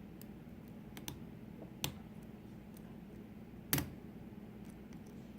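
Lock picking: a few small, separate metallic clicks as a pick works the pins of a five-pin pin-tumbler lock held in a deep false set, the loudest about three and three-quarter seconds in. A faint steady low hum underneath.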